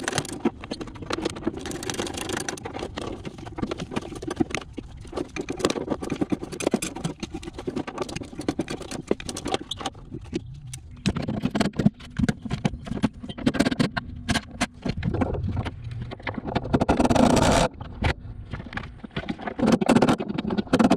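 Wrench and bolt work on steel: a dense, irregular run of clicks and scrapes as bolts are turned out, with a louder, longer stretch of noise about 17 seconds in and again near the end.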